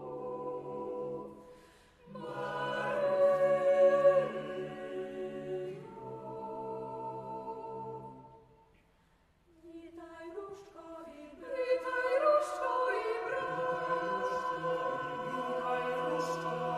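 Mixed choir singing a cappella, with sustained chords. The sound breaks off briefly about two seconds in, swells loudly, then fades to a short silence around the middle. Voices come back in thinly and build to the full choir near the end.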